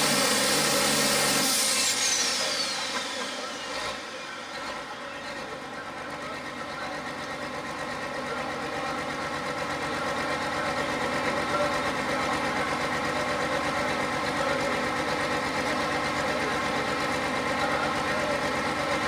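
John Deere 11,000 lb Pro Farm pulling tractor's turbocharged diesel engine coming off full power about a second and a half in, a high whine falling away in pitch over the next couple of seconds, then idling steadily.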